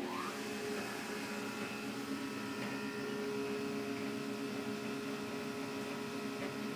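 1956 Long Elevator service elevator machinery running: a steady hum with several steady whining tones, after a short rising whine at the start.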